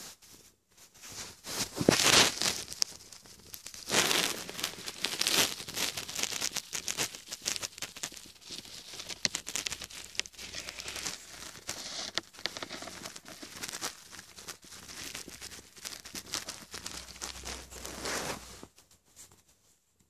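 Close, crackly rustling of fingers scratching and rubbing a cat's fur, uneven and loudest about two and four seconds in; it stops shortly before the end.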